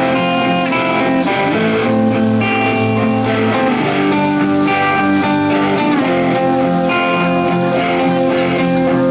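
Recorded music with guitar played loud through a PA sound system during a sound check, with sustained notes and chords changing throughout.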